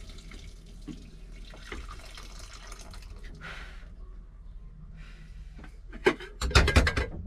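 Water running from a tap into a galley sink, a steady low hiss, with a brief loud voice-like outburst near the end.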